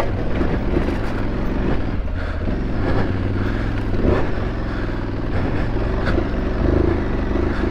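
Aprilia Tuareg 660's parallel-twin engine running steadily as the motorcycle is ridden through rocks, with a few short knocks as the tyres hit stones.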